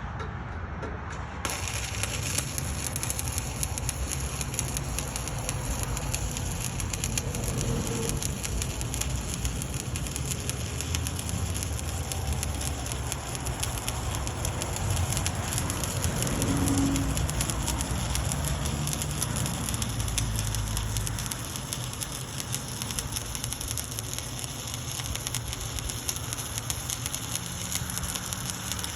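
Stick welding with 1/8-inch 7018 rod at about 124 amps: the arc crackles and sizzles steadily from about a second and a half in, over a low rumble.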